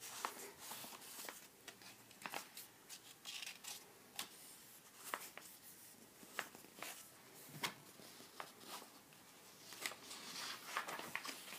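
Faint rustling and scattered light clicks of a paperback picture book's pages being handled and turned.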